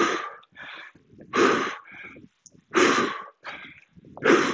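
A man breathing hard under exertion: four short, forceful exhalations about a second and a half apart, with quieter breaths drawn in between, one breath per dumbbell swing.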